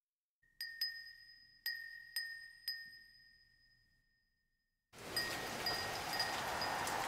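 Japanese furin wind chime ringing in five quick, clear strikes that slowly fade. About five seconds in, a steady hiss of rain starts, with the chime still tinkling lightly under it.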